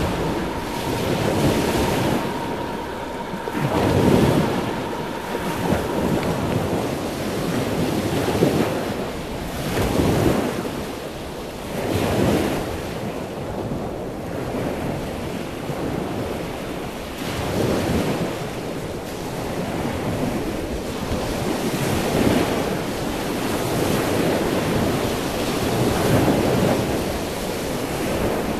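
Ocean surf: waves washing in, a rushing noise that swells and ebbs every few seconds.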